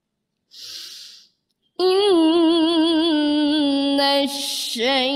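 A woman reciting the Quran in the melodic mujawwad style of competition recitation. After a moment of quiet and a brief hiss, her voice enters about two seconds in on a long, held note that wavers and turns in ornamented runs.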